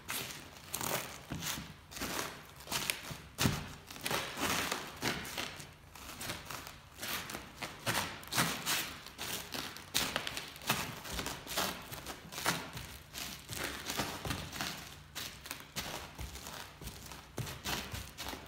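Leather boots stamping on and grinding a large sourdough loaf, with a continuous run of dry crunching and crackling from crust and crumbs underfoot and dull thuds of the boots on the wooden floor, several a second.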